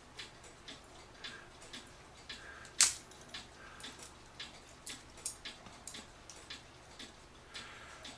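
Citizen battery cuckoo clock movement ticking steadily, about two ticks a second, freshly oiled and running again on a temporary battery hookup. A single louder sharp click comes about three seconds in.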